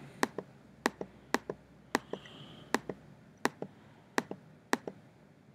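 Computer mouse button clicked repeatedly, each click a sharp press-and-release double tick, about one every 0.7 s.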